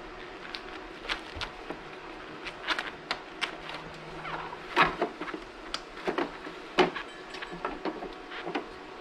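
Irregular clicks, taps and knocks of hard plastic taillight parts (a 2006 Acura TL LED unit and aftermarket DEPO housing) being handled and fitted together, with light rustling of the bubble wrap they rest on. The two loudest knocks come around the middle.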